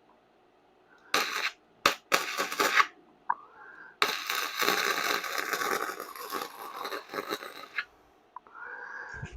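Electric welding arc crackling as a new steel patch is tacked into a car frame: three short bursts in the first three seconds, then one long bead of about four seconds.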